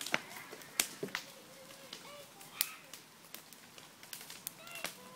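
Wood fire crackling in a metal fire basket: sharp pops and snaps at irregular intervals, two of them louder, about a second in and again midway.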